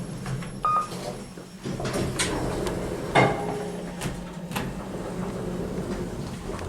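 Lift doors sliding and knocking shut or open, with a short high beep about a second in and a louder clunk about three seconds in, over the steady hum of the lift.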